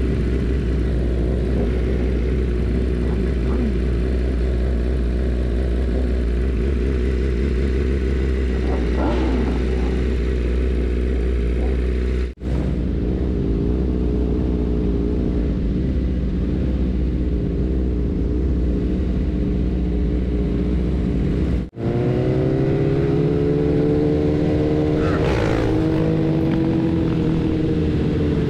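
BMW S1000RR inline-four engine idling steadily among other sport motorcycles, broken by two brief dropouts. After the second one the engine pitch rises as the bike pulls away at low speed in a group of motorcycles.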